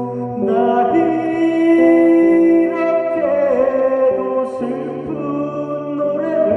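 A man singing a Korean song with long held notes while playing an electric guitar, over accompanying music.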